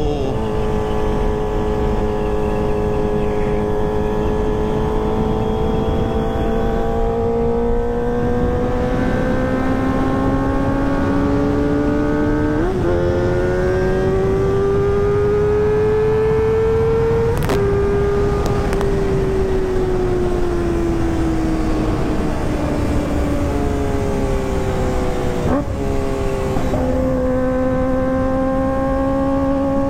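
Kawasaki ZX-25R's inline-four engine running through a ProLiner TR2 full-system racing exhaust while riding, the engine note slowly climbing with throttle. The pitch jumps at gear changes about 13 seconds in and again near the end, and between those the revs fall away gradually as the rider eases off.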